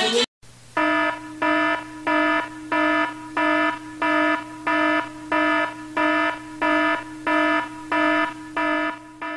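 Electronic alarm beeping in a regular pattern, about three beeps every two seconds, each the same pitched tone, over a steady low hum. It starts just under a second in and cuts off abruptly at the end.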